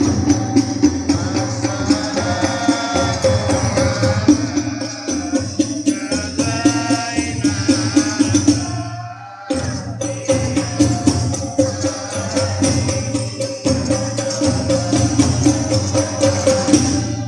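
A habsyi group singing a devotional song together over frame drums beating a steady rhythm. The music briefly drops out about halfway through, then carries on.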